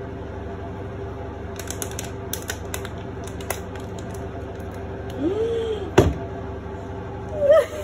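Spoon tapping and scraping against a pot while thick chocolate filling is poured onto a cake, giving a few scattered light clicks over a steady hum. A short squeak follows, then a single sharp knock about six seconds in.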